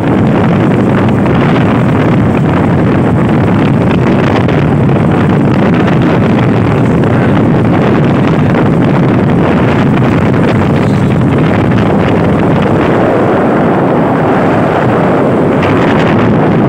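Loud, steady rushing wind noise on the microphone.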